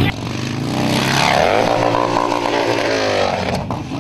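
Harley-Davidson XR1200's air-cooled V-twin motorcycle engine running and revving, its pitch rising about a second in and then winding back down.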